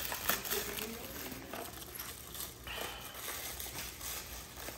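Plastic wrapping crinkling and rustling in irregular soft crackles as it is pulled off a toy RC car.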